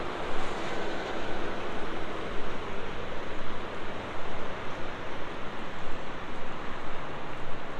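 Steady road traffic noise from a wide multi-lane city road: a continuous hiss of passing cars and trucks with no single vehicle standing out.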